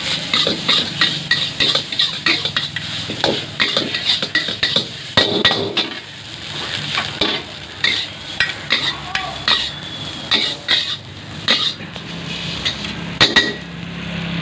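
Two metal ladles clanking and scraping against a steel wok as fried rice is stir-fried, in quick irregular strokes with brief lulls, over a frying sizzle.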